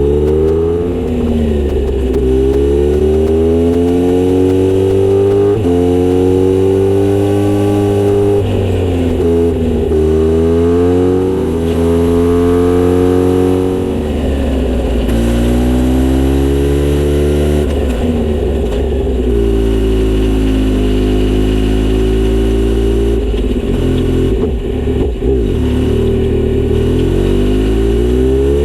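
Kawasaki Z900RS inline-four motorcycle engine through a Misty Kintaro short exhaust with a 70 mm silencer, revving up and dropping back repeatedly. Its pitch climbs over a second or two, holds, then falls, about every three to five seconds, over a loud low rumble.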